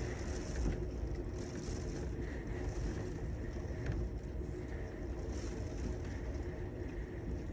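Steady rain with a low rumble of city traffic underneath and a constant low hum.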